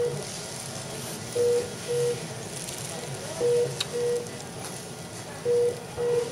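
Electronic beeping from a hospital monitor: pairs of short beeps at one low pitch, repeating about every two seconds. A single sharp click comes a little past the middle.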